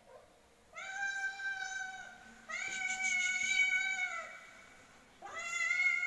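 Calico cat meowing three times, each a long, drawn-out meow, begging for food.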